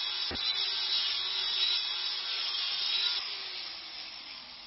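Workshop tool noise: a steady, high-pitched hissing rasp of a tool working metal, easing off after about three seconds. A single sharp click comes near the start.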